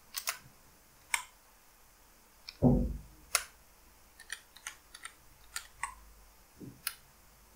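Computer keyboard keys pressed one at a time with pauses between, sharp single clicks. There is one louder dull thump about two and a half seconds in.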